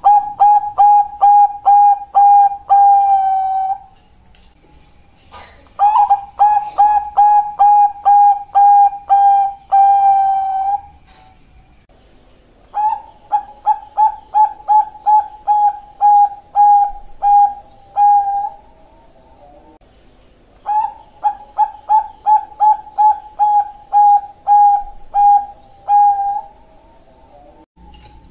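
Zebra doves (perkutut, Bangkok type) singing. Four phrases of quick, evenly spaced cooing notes, each several seconds long, are separated by pauses of about two seconds.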